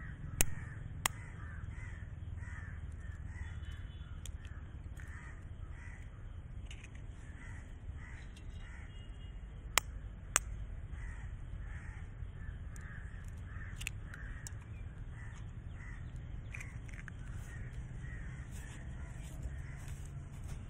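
A steel spoon rapped against hen's eggs: two sharp cracks near the start and two more about ten seconds in, as two eggs are broken. Crows caw steadily in the background.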